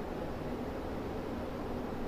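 Steady, even hiss of background noise, with no distinct clicks or knocks.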